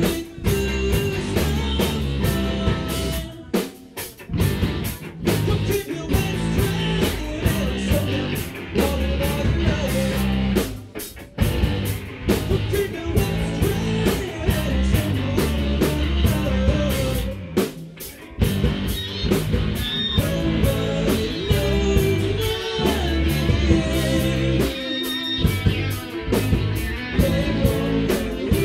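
Live rock band playing: several electric guitars over a drum kit. The band stops short for a moment about four times.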